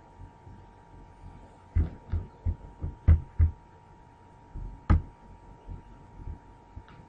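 A run of short, dull thumps, about six in quick succession, then one sharper knock about five seconds in and a few faint ones after, over a faint steady hum.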